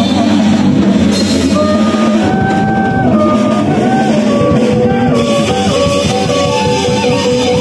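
Live ethno-jazz band playing: a kaval, the Bulgarian end-blown flute, carries a melody of held notes, some bending in pitch, over electric guitar, bass and a busy drum kit.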